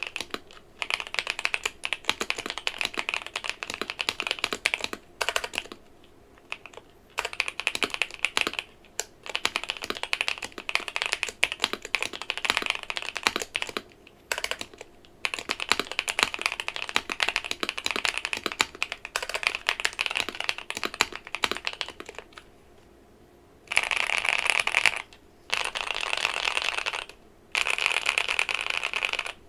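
Akko Mod007 mechanical keyboard with green tea switches on an FR4 plate and Cherry-profile keycaps being typed on in a sound test, in runs of rapid keystrokes with short pauses. Near the end the keystrokes come in denser, steadier runs.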